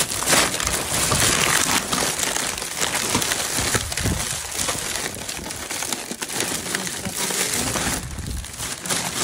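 Plastic bags crinkling and rustling continuously as they are handled and carried.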